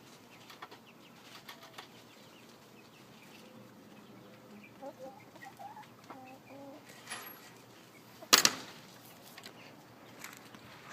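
Young Red Ranger chickens peeping softly now and then, with a single sudden loud noise about eight seconds in.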